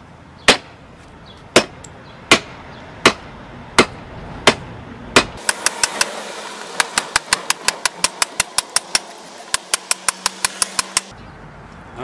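FiveJoy folding shovel's steel blade edge chopping into a dry hardwood stick: sharp single chops about every three quarters of a second, then quicker, about four a second, from about five seconds in until shortly before the end.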